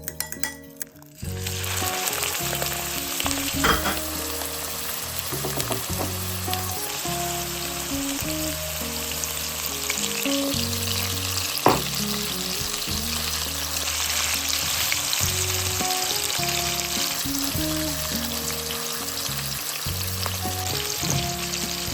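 Food sizzling in a hot frying pan, starting about a second in, with occasional stirring and a sharp utensil knock about twelve seconds in; soft background music runs underneath.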